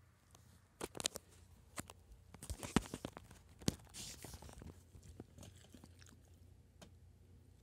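Irregular rustling and sharp clicks, busiest in the first half, then trailing off to faint rustles.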